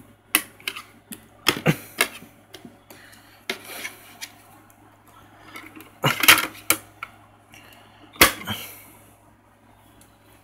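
Sharp plastic clicks and knocks from handling a DVD: the disc is taken off the hub of its plastic case and loaded into a DVD player. The loudest knocks come about six and about eight seconds in.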